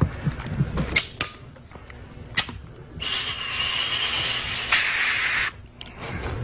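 A lighter clicked three times with sharp snaps, then a steady hiss with a faint high whistle for about two and a half seconds while the pipe is lit.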